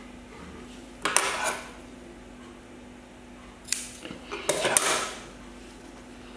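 Cotton fabric handled and shifted on a sewing table, rustling in two short bursts, about a second in and again past the middle, with one sharp click between them, over a faint steady hum.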